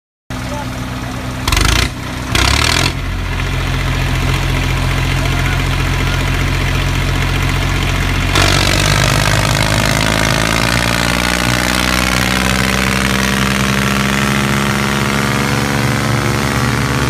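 Engine running steadily, cutting in suddenly with two short loud bursts in the first few seconds. About eight seconds in, its tone changes and the pitch lines slowly drift.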